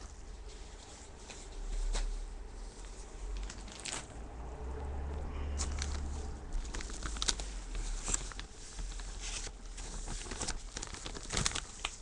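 Plastic bag crinkling and rustling as it is handled, with irregular taps and clicks, busier in the second half.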